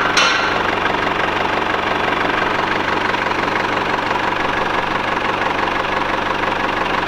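Mercedes E220 CDI four-cylinder common-rail diesel engine idling steadily with its typical diesel clatter, running again on a new crankshaft sensor.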